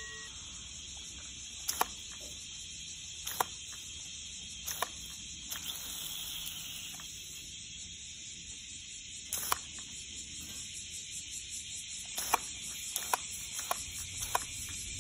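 A steady high hiss, with short sharp clicks scattered through it at uneven gaps, a few early on and more of them near the end.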